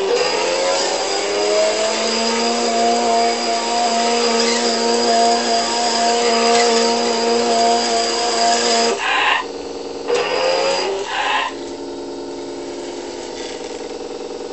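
Synthetic engine sound from an RC car's onboard sound unit, played through a small speaker. The engine note rises over the first two seconds and holds high and steady until about nine seconds in. It then drops, blips twice like throttle stabs, and settles back to a lower idle.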